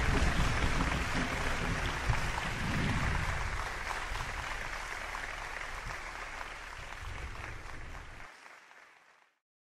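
Applause together with the tail of the closing music, both fading out to silence near the end.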